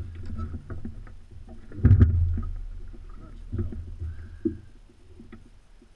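Knocks and thumps of a spotted bass being handled and unhooked aboard a fishing boat, with one heavy thump about two seconds in and smaller knocks later, over a low rumble.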